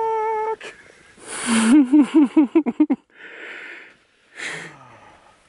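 A man's wordless reactions at an avalanche: a held "ooh" at the start, then a loud burst of laughter a little over a second in, followed by heavy breathy exhales, the last one falling in pitch like a sigh.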